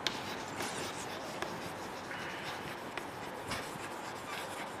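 Chalk writing on a blackboard: faint scratching with a few light taps as the letters are formed.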